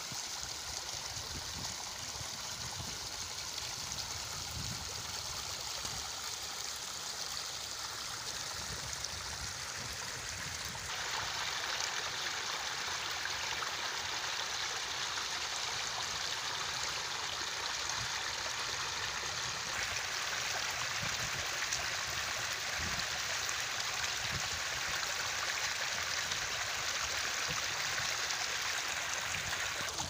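Fast muddy water rushing and churning over a dirt bank and through grass, a steady rushing noise that grows louder and brighter about a third of the way through.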